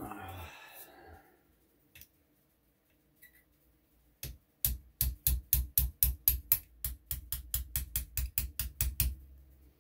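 A small hammer rapidly tapping on a pin in an air rifle's action, about two dozen light metal-on-metal taps at about five a second, driving the pin out. A brief rustle of handling comes first.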